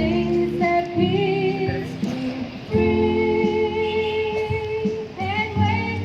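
A song: a female voice singing long held notes over a guitar accompaniment.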